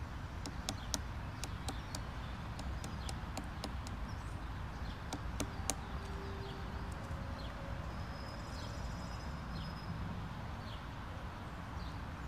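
Black woodpecker hacking into a tree trunk with its bill: a run of irregular, sharp pecks on wood in the first half, then only a few more.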